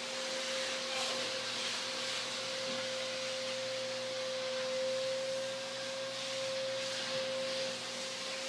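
A steady high-pitched tone held without a break, over a constant hiss.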